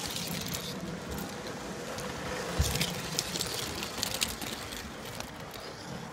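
G-scale model train running on its track: a steady running noise with scattered sharp clicks and one louder knock about two and a half seconds in.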